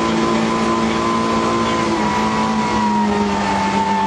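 Rally car engine running hard at high revs, heard from inside the cabin; its note holds steady, then slowly drops in pitch over the last couple of seconds.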